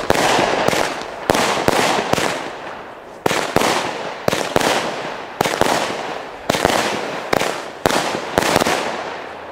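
Nordlicht 'Blutgrätsche' 16-shot 20 mm firework battery firing: a quick run of sharp bangs, roughly one or two a second, each trailing away before the next.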